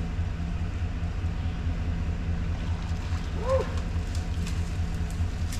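An engine idling steadily with a low, rapidly pulsing rumble. A short call rises and falls once about three and a half seconds in.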